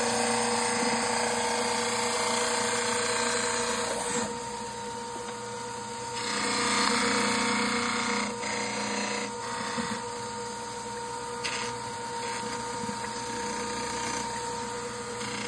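Dental lab wet model trimmer running, its water-cooled abrasive wheel grinding a dental stone model held against it. A steady motor hum sits under the grinding, which grows louder from about six to nine seconds in.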